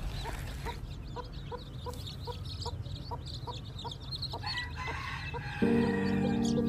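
Broody hen clucking in a steady rhythm of short, low clucks, about two to three a second, over the constant high peeping of many newly hatched chicks. Music comes in near the end.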